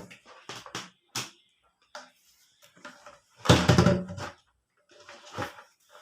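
Scattered clicks and knocks from handling a power bank and its charger cable, with one louder clatter lasting just under a second about three and a half seconds in.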